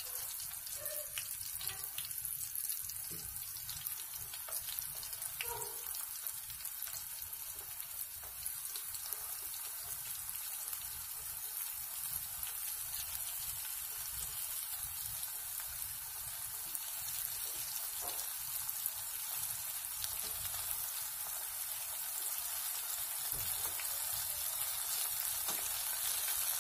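Battered chicken feet deep-frying in hot oil in a pan: a steady sizzle with scattered small pops, growing a little louder near the end.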